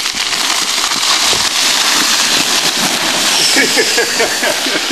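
Icy, crusted snow crackling and scraping steadily, with voices calling out about three and a half seconds in.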